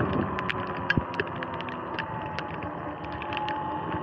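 Electric dirt bike coasting on wet pavement as it slows: a faint motor whine falling slowly in pitch over the steady hiss of tyres on water, with scattered light ticks throughout.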